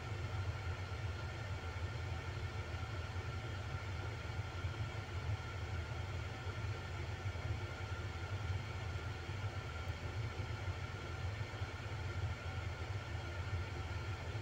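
Diesel engines of a distant Caterpillar D7R bulldozer and an excavator at work, heard as a steady low rumble with no breaks.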